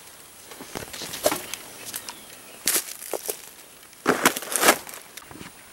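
Footsteps crunching through dry leaf litter and brushing past undergrowth, with scattered small snaps and crackles; louder rustling bursts come about two and a half and four seconds in.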